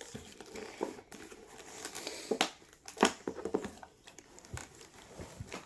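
Toy packaging crinkling and tearing as it is peeled and pulled apart by hand, with irregular crackles and a few sharp snaps, the loudest about three seconds in.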